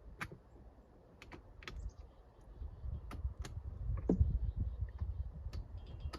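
Scattered light clicks and taps at irregular intervals over a low rumble.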